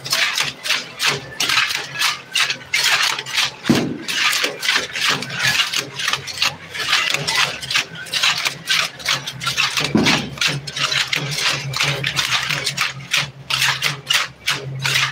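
A dance troupe's rattles shaken in a steady rhythm, about four shakes a second, over crowd noise and a steady low hum.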